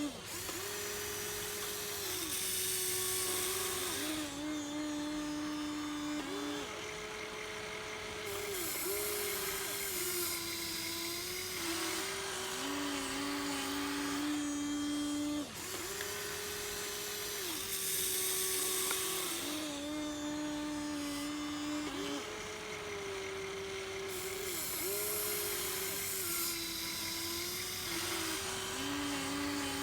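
Electric motors and gearboxes of a Huina 1593 RC excavator whining as it works, the pitch stepping up and down every few seconds as different functions are driven.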